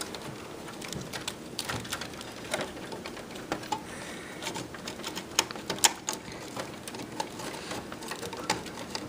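Irregular small clicks and rattles of plastic parts being handled as a floppy drive ribbon cable and its connector are worked into place inside a desktop PC case, with two sharper clicks a little past the middle.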